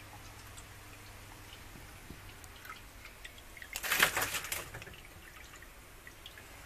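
Leaves of terrarium plants rustling and crackling in a short loud burst about four seconds in, as the foliage brushes close against the camera. Under it a low steady hum runs, with scattered faint ticks.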